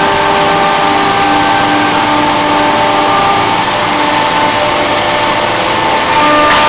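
CNC milling machine running: a steady loud whir with machine tones that start, stop and shift in pitch every second or so.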